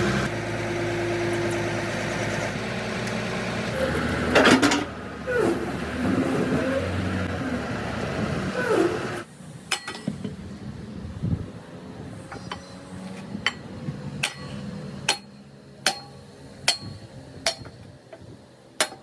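An engine running steadily. About nine seconds in it gives way to a series of sharp hammer blows on metal, a little more than one a second.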